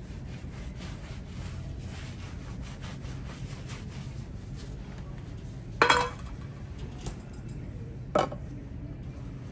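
Shoe-shine brush dabbing and rubbing on a leather sneaker, with small scratchy ticks, then two sharp clinks, the first and loudest about six seconds in and the second about two seconds later, as things are set down on the wooden shoeshine stand. A low steady hum runs underneath.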